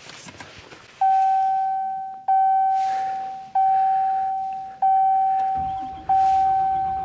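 Diesel pickup truck's dashboard warning chime with the key on before a cold start: five identical single dings about 1.3 seconds apart, each fading away. A faint low rumble comes in under the last two dings.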